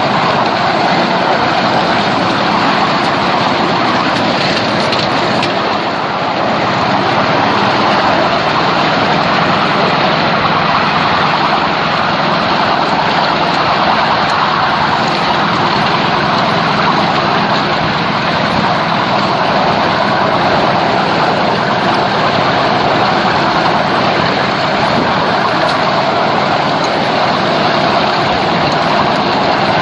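A 7¼-inch gauge miniature railway train running along its track, heard from one of its riding cars: a loud, steady running noise with no clear beat.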